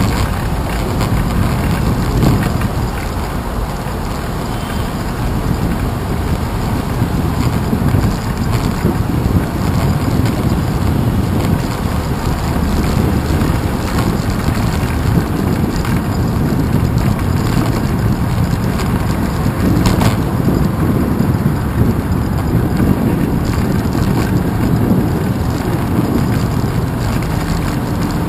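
Steady wind buffeting and rolling road rumble picked up by a handlebar-mounted action camera on a moving bicycle, with wet tyre noise from the rain-soaked path. A single sharp tap or knock comes about twenty seconds in.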